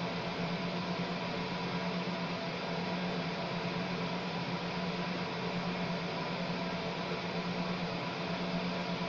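Laser marking machine running while marking a metal dog tag: a steady hum with a low drone and fan-like hiss, unchanging throughout.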